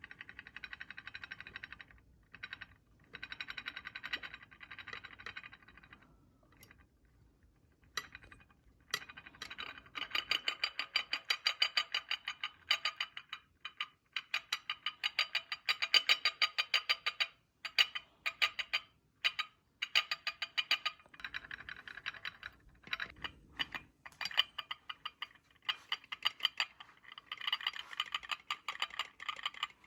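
Ceramic cups rattling against each other in quick, fast clinks, as if held in trembling hands. The rattling comes in runs of a few seconds with short pauses, and grows louder about a third of the way in.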